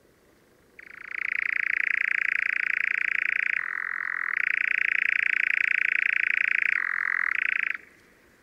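Eurasian nightjar churring: one long, rapid trill that starts about a second in, drops to a lower pitch twice along the way, and cuts off near the end.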